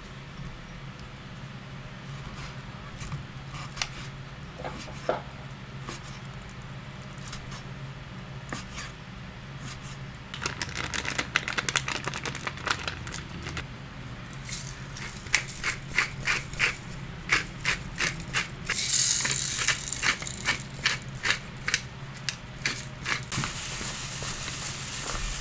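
Kitchen food-prep sounds: a knife clicking against a wooden cutting board as raw chicken is sliced. Then paper and thin plastic crinkle and rustle as flour is shaken from a paper packet and the chicken is mixed by hands in plastic gloves. A steady low hum runs underneath.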